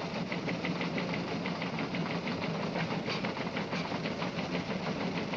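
Rhythmic mechanical-sounding clicking, about five clicks a second, over a steady low hum and hiss.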